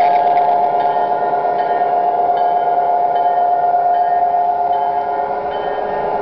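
O-scale model train rolling past at close range: a steady metallic ringing hum from the running train, with faint short high tones above it, easing slightly about five seconds in.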